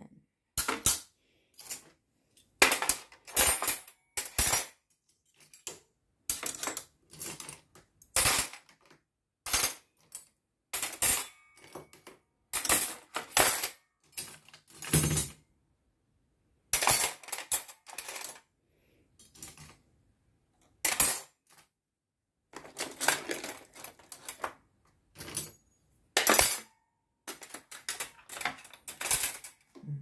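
Stainless steel cutlery clattering and clinking as handfuls of spoons, forks and knives are lifted from dishwasher cutlery baskets and dropped into a plastic drawer organiser tray. It comes in irregular bursts with short pauses between them.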